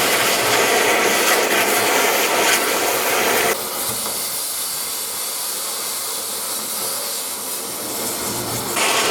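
Gas cutting torch hissing steadily as it burns through steel hull plate. The noise drops abruptly to a quieter level about three and a half seconds in and comes back louder near the end.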